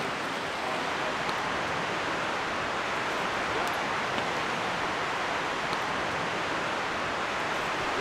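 Steady rush of river rapids, fast water running without a break.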